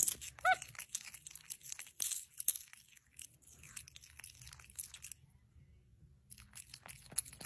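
Capuchin monkey chewing popcorn with its mouth open: a dense run of crunches and smacking clicks that thins out after about five seconds and picks up again near the end. One short rising squeak about half a second in.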